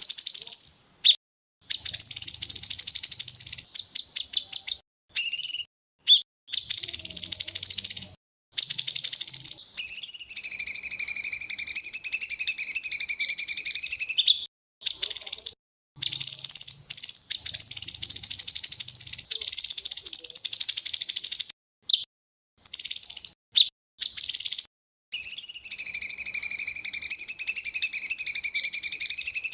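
Recorded songbird song used as a masteran training track: loud, rapid bursts of fast buzzy trills and rattles, alternating with long wavering whistled phrases. The song stops and restarts abruptly several times, as if cut together.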